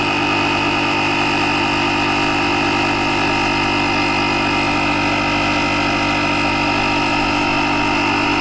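Built-in air compressor of a CAT CJ1000DXT power station running steadily as it inflates a car tire, nearly at its 32 psi setting; a bit noisy.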